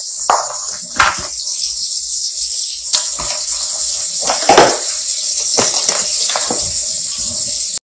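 Kitchen handling noises from hands working at a glass mixing bowl: irregular soft knocks and rustles, the loudest about four and a half seconds in, over a steady hiss. The sound cuts off abruptly at the end.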